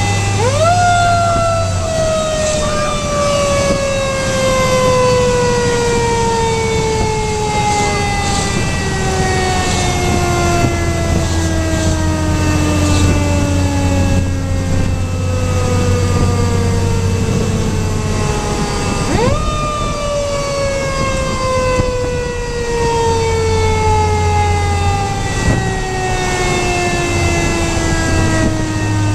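A fire engine's mechanical siren, heard from inside the cab, wound up quickly twice: about half a second in and again about 19 seconds in. After each wind-up it winds down slowly over many seconds. The engine drones low and steady underneath.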